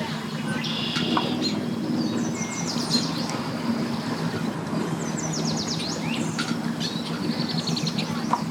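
Boat engine idling with a steady low hum as the boat eases in, with birds calling in quick chirping runs over it several times.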